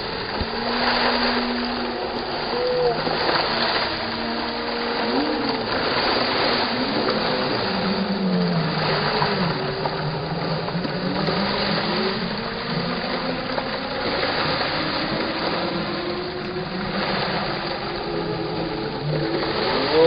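Ground-level jet fountain splashing steadily: water jets shooting up and falling back onto the paving in a continuous hiss that rises and falls a little.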